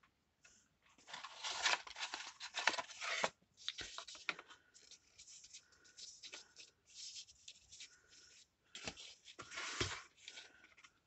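Paper and cardstock being handled and worked, in irregular bursts of rustling with quiet gaps between.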